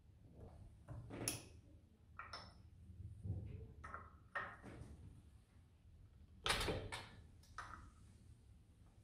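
Metal parts of a steel eyelet press being handled and adjusted by hand, tools against the dies and locking nut: a run of irregular clicks, clinks and knocks, the loudest about two-thirds of the way in.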